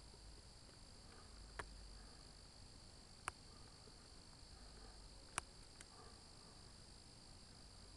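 Near silence, with a faint steady high-pitched trill of crickets and a few sharp clicks.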